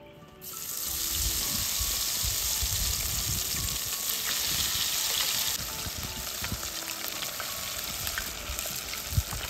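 Battered avocado and angelica-tree buds deep-frying in a pot of hot oil: loud, steady sizzling that starts about half a second in as the pieces go in and eases a little after about five and a half seconds. Low knocks underneath and one sharp click near the end.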